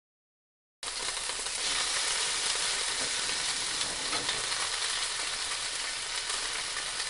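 Chicken thigh sizzling in a frying pan: a dense, steady crackling sizzle that starts abruptly about a second in.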